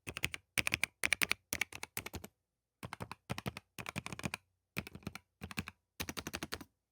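Typing on an EPOMAKER LUMA100 low-profile mechanical keyboard: quick runs of key clicks in short bursts with brief pauses between them, stopping near the end.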